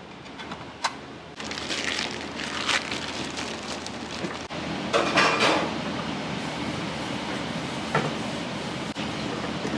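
Restaurant kitchen work: a few clinks and knocks of dishes and utensils, with hissing bursts like running water or sizzling over a steady background hiss.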